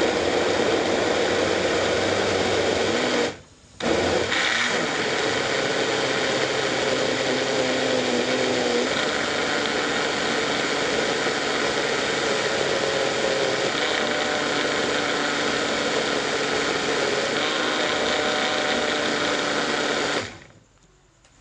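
Countertop blender running, puréeing a chili sauce mix of peppers, garlic and oil. It cuts out briefly about three seconds in, then runs steadily with its whine shifting in pitch a few times, and stops near the end.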